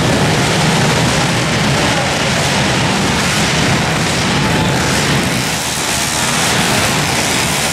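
Several 190 cc pit bikes racing, their engines running hard together in one loud, steady din, echoing in an indoor arena.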